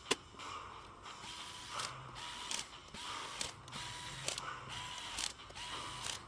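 Cordless drill/driver driving screws into a hoverboard's plastic shell: its motor whines in many short bursts of a fraction of a second each, with clicks between. A sharp click just after the start is the loudest sound.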